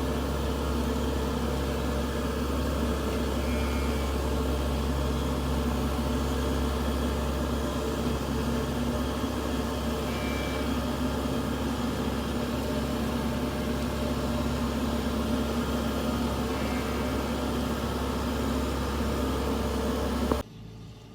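Combine harvester's engine running steadily with an even, constant hum, cutting off abruptly near the end.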